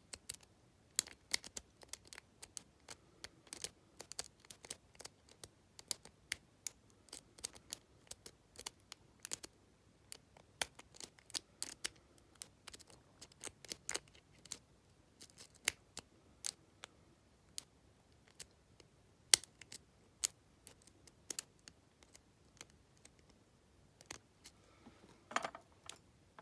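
Lock pick clicking and scraping on the pins inside an Abus My Love T65AL/40 padlock: irregular sharp ticks, several a second, as pins are lifted and set under tension. The picker has four of the five pins set and cannot get the fifth, so the lock does not open.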